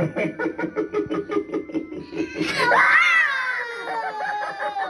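Dagger Mike clown animatronic playing its sound track: a rapid run of laughing pulses, then a long high shriek-laugh about halfway through that climbs sharply and slides back down.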